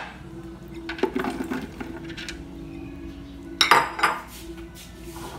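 Chunks of fresh coconut tumbling from a glass bowl into a plastic blender jar, knocking against the jar. A louder clatter comes about four seconds in, as the glass bowl is set down on the counter.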